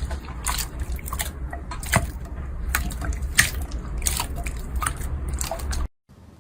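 Slime being squished and poked, making irregular wet clicks and pops over a low hum; the sound cuts off suddenly near the end.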